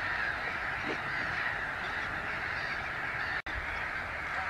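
A steady din of many distant waterbirds calling together over open water, cutting out for an instant about three and a half seconds in.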